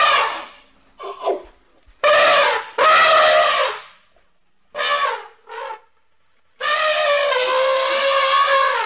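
Elephant calf trumpeting: a string of high calls. Two short ones come about five seconds in, and a long call held at one pitch runs from about six and a half seconds.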